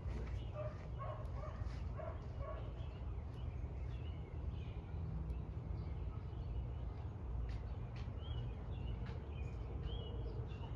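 A dog barks a few times in the distance in the first two seconds. Later a bird gives short repeated chirps, over a steady low outdoor rumble.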